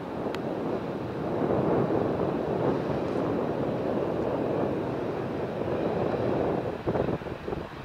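Boeing 737-500's CFM56-3 jet engines at taxi power as the airliner rolls along the taxiway: a steady rushing engine noise with no clear whine. The noise turns choppy and dips near the end.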